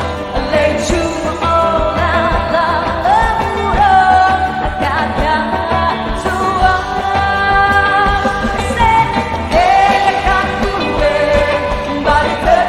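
Live band music with a singer holding long notes with vibrato over a steady beat.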